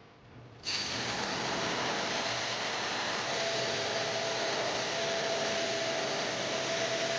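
An electric appliance motor starts abruptly about a second in and runs with a loud, steady rush of air and a faint whine.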